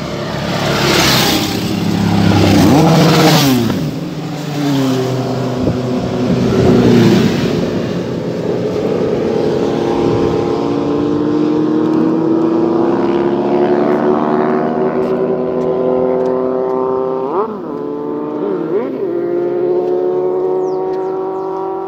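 Motorcycles passing close by on a highway: two quick passes in the first few seconds, their engine notes falling in pitch as they go by. Then a long engine note climbs slowly and steadily, with two short blips near the end.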